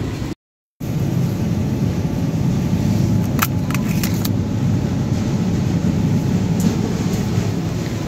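Shopping cart rolling over a store floor: a steady low rumble that cuts out briefly just after the start. A few sharp clicks of plastic packaging being handled come around the middle.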